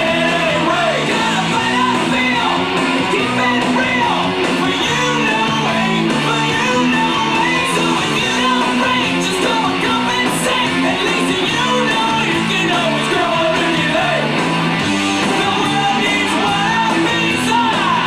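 Loud pop music with a sung vocal over a repeating, stepping bass line.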